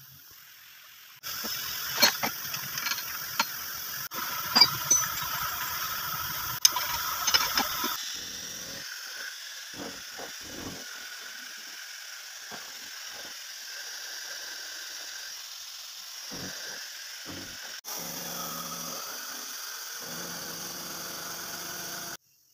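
A 100 mm face mill on a CNC vertical machining centre cutting across a rusty steel block: steady cutting noise with a hiss and sharp clicks through the first several seconds, quieter and steadier after about eight seconds.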